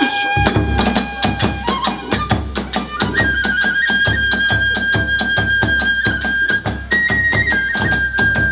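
Kagura hayashi ensemble playing: a bamboo transverse flute (fue) steps through a few notes and then holds a long high note, over drums and small hand cymbals beating a fast, steady rhythm.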